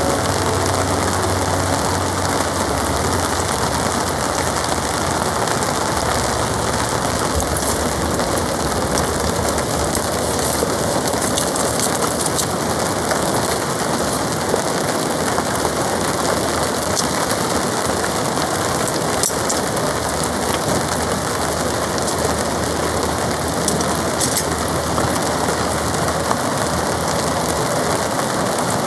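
Heavy rain drumming steadily on a polycotton tarp, a dense even patter with scattered sharper drop hits.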